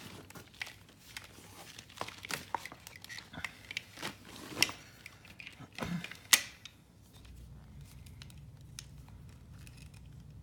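Rustling and crinkling with scattered clicks and knocks as heavy jumper cables and their carrying pouch are handled, with one sharp click about six seconds in. After that, handling stops and a faint steady low hum remains.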